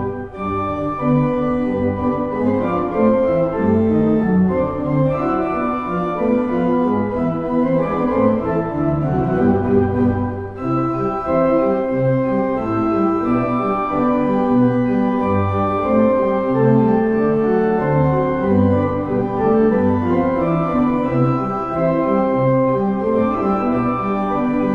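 Pipe organ played on the pedals alone by two players, a pedal duet: a quick, lively run of short notes over a steady pulse of low notes.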